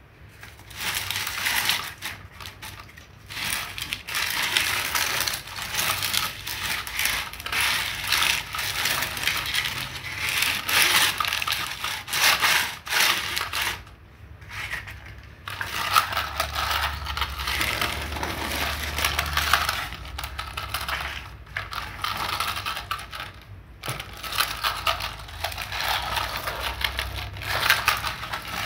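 Hard plastic toy tractor pushed by hand across a rough concrete floor: its plastic wheels roll and scrape in a dense, rattling clatter that stops briefly a few times.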